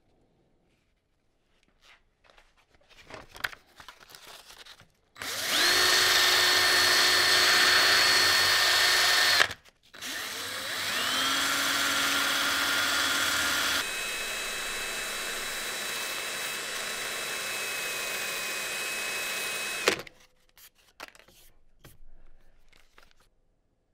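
Power drill spinning a wooden wrench handle mounted on a bolt while a sanding sponge is held against it, turning the drill into a makeshift lathe. The drill runs in two spells: a loud steady whine for about four seconds, a short stop, then a quieter run whose pitch settles, shifts again partway through, and cuts off near the end, with light clicks of handling before and after.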